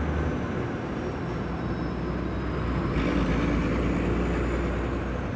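Bus engine and road noise heard from inside the cab while the bus is driving: a steady low rumble with a hiss over it, which grows a little brighter about three seconds in.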